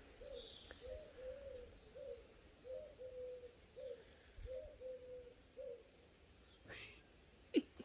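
A pigeon cooing faintly in a repeated phrase of soft, low coos, some notes held longer, which stops about six seconds in. Near the end comes a single short, sharp sound, louder than the coos.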